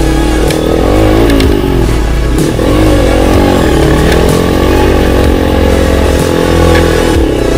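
Quad bike (ATV) engine revving, its pitch rising and falling a few times, then holding steady for several seconds before dropping near the end.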